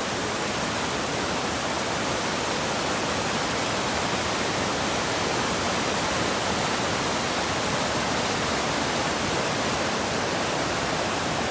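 Mountain creek rushing steadily over rocks: a loud, even rush of water with no let-up.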